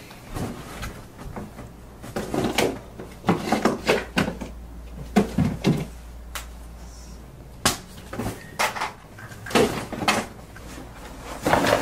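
Irregular knocks, clunks and rustling of objects being handled around a cardboard box: a dozen or so short sharp sounds spread unevenly through, with quieter rustling between them.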